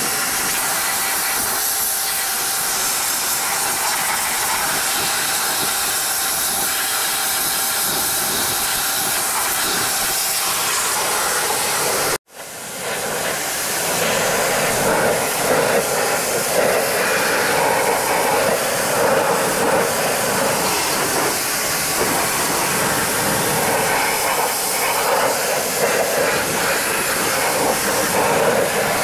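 Pressure washer's high-pressure water jet hissing steadily as it sprays against a tractor's steel footplate and bodywork. It cuts out abruptly about twelve seconds in and resumes at once, a little fuller as the spray drums on the metal.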